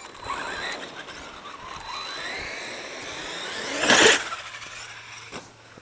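Traxxas X-Maxx RC truck's electric motor whining, the pitch gliding up and down as it speeds up and slows, with a loud rush of noise about four seconds in.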